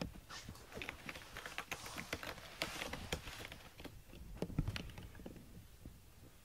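A cat moving about: quick, irregular soft clicks and taps, busiest in the middle and thinning out near the end.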